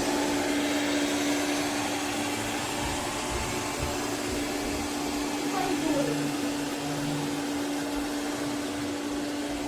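MAMNV robot vacuum running: a steady motor-and-fan whirr with a constant low hum tone beneath it.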